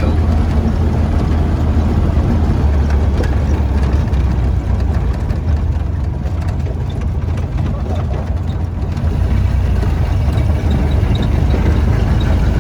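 1931 Ford Model A's four-cylinder flathead engine running steadily at a leisurely driving speed, with road and wind noise, easing off a little in the middle and picking back up.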